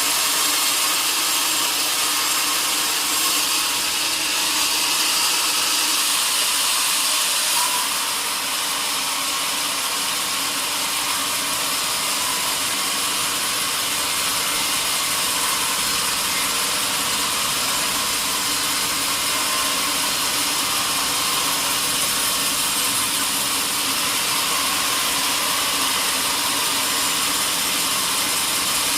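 Sawmill saw cutting through a large log, a loud steady high-pitched hiss that eases slightly about eight seconds in.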